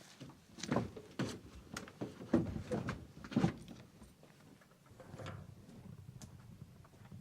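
A series of sharp knocks and clunks, then a low steady rumble from about five seconds in.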